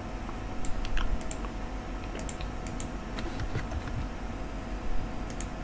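Typing on a computer keyboard: short, sharp keystroke clicks at irregular spacing, a few bunched together, with short pauses between.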